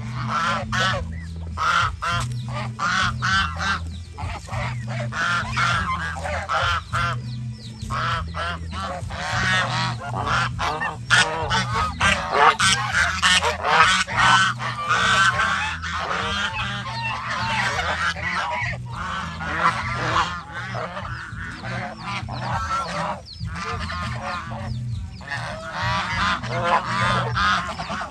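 A flock of domestic geese honking, many calls overlapping without a break, over a steady low hum.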